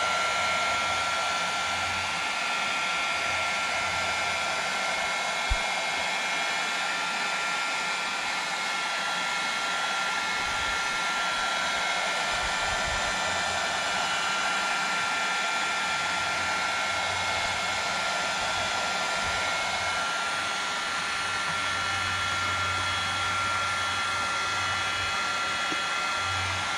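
Heat gun blowing steadily, with a constant high whine over the rush of air, softening a plastic milk jug for molding. One brief click sounds about five seconds in.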